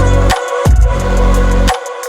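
Electronic background music with heavy bass and a pounding drum beat, the bass dropping out briefly between hits.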